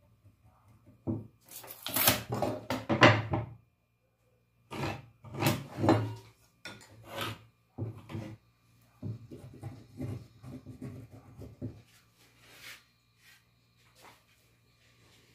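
A pallet slat being marked with a pencil and handled on a wooden workbench: irregular bursts of scratching and rubbing, the loudest a couple of seconds in.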